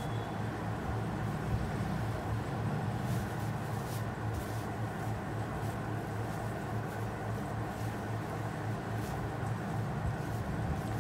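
Steady low hum of background noise, with a few faint soft ticks.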